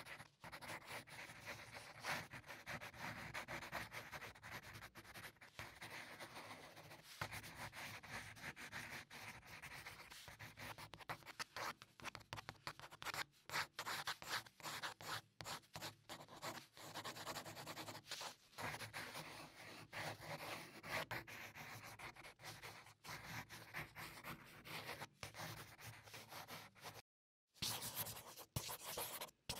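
Paintbrush scrubbing paint onto paper in quick, repeated scratchy strokes. The sound cuts out briefly near the end and comes back as a pencil scratching across paper.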